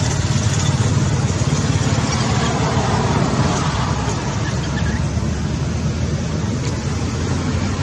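Steady low rumble and hum of a running motor, unbroken throughout.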